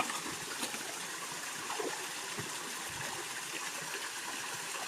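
Small waterfall running into a shallow pool: a steady rush of falling water, with a few faint knocks.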